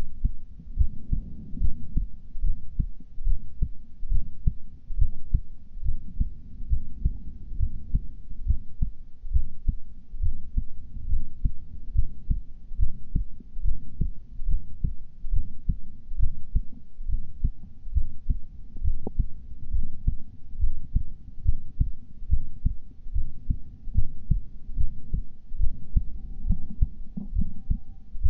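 A heart beating at rest, a steady, regular run of low beats. The recorder thinks a systolic murmur can be heard in it.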